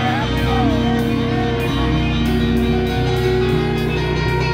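Rock band playing live and loud, with sustained bass notes, sliding melodic lines and a steady drum beat.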